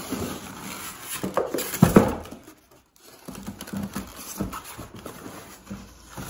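Cardboard packaging being handled, its flaps and sides rustling and scraping as the box is pulled away and searched by hand. The loudest scrape comes about two seconds in, with a brief pause just before three seconds.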